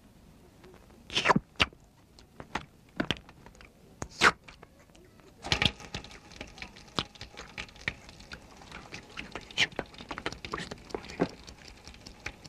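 Animated-film sound effects: a few sharp, separate clicks and knocks, then from about five seconds in a dense run of small clicks and crackles.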